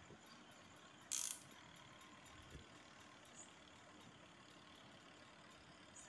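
A washing machine's clear plastic mechanical timer being handled, giving one short, sharp clicking rattle about a second in and a faint knock a little later, over near silence.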